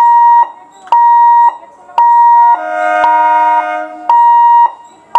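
Level-crossing warning buzzer sounding a loud, steady high tone in half-second beeps about once a second. For about a second and a half in the middle, a horn of several tones sounds along with it.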